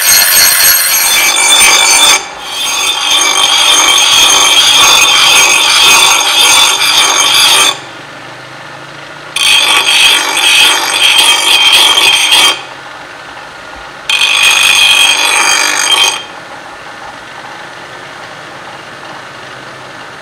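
Bench grinder's stone wheel grinding the steel blade of a meat cleaver made from leaf spring: a loud harsh grinding in several passes of two to five seconds. Between passes and over the last few seconds the grinder runs on its own with a quieter steady hum.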